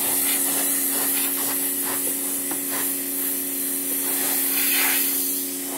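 Pressure washer running: a steady motor hum under the hiss of the water spray.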